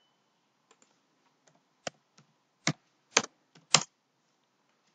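Computer keyboard keys pressed one at a time, a handful of short sharp clicks at uneven spacing, the loudest four in the second half.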